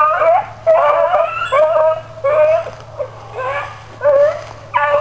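Hound dogs baying as they run a rabbit's trail: a string of about eight short, pitch-bending calls, one every half second or so.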